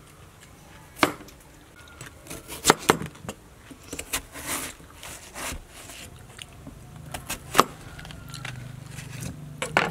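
A crinkle-cut knife chopping through a watermelon: a string of sharp, irregular knocks and cracks as the blade cuts through the rind, with a short crunch of the flesh being sliced in between.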